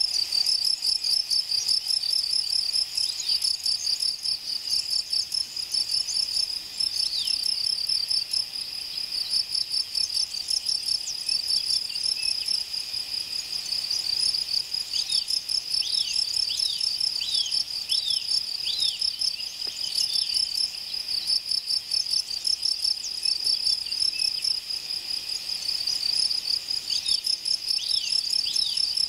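Crickets chirping in a steady, rapid pulsing chorus, with short high downward-sliding chirps breaking in now and then, in runs about halfway through and again near the end.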